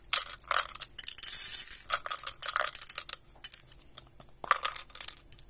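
Tic Tac mints rattling and clicking against each other and their plastic box as they are poured between the box and a palm. A dense, steady rattle of pouring runs about a second in, followed by scattered small clicks.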